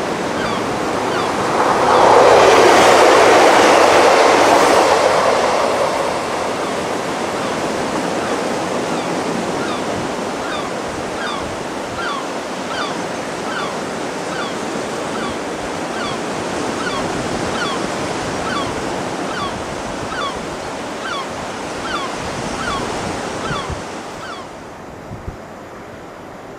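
Sea surf washing against a sea wall with wind on the microphone, a steady rush that swells loudest for a few seconds near the start. A faint high chirp repeats evenly through the middle.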